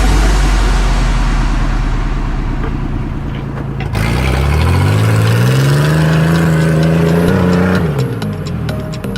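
Off-road 4x4 vehicle's engine running loudly under load, then revving up about halfway through, held high for a few seconds and dropping back near the end.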